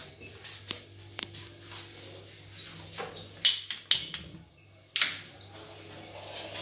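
A hand-held lighter clicking to light a gas stove burner: a few soft clicks, then three loud sharp clicks in the second half, with the gas catching.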